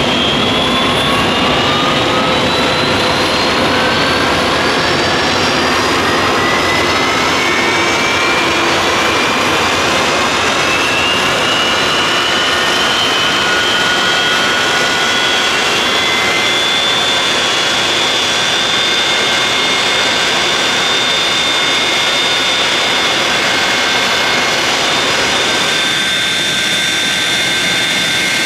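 Boeing 737-200's Pratt & Whitney JT8D turbofan engines running on the ramp with a loud jet roar. A high whine rises in pitch over roughly the first fifteen seconds as the engine spools up, then levels off into a steady idle whine.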